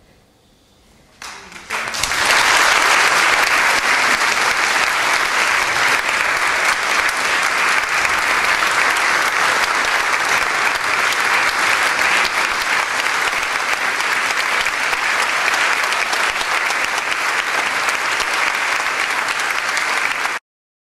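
Concert audience applauding: a few scattered claps about a second in swell quickly into full, steady applause, which cuts off abruptly near the end.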